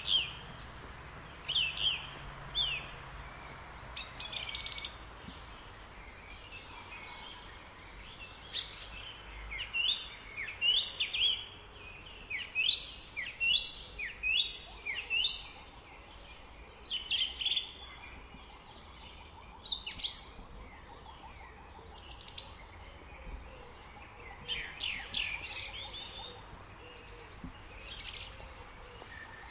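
A thrush singing a long run of short, varied phrases of quick sliding whistles and chirps, one phrase after another with brief pauses, over faint steady background noise.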